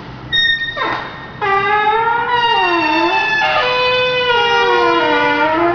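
A short high beep, a quick falling sweep, then two sustained pitched tones sounding together and gliding slowly up and down like sirens, part of a noise performance.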